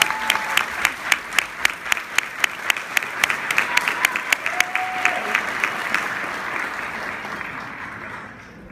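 Audience applauding, with one pair of hands clapping loudly close by at about four claps a second. The applause dies away over the last few seconds.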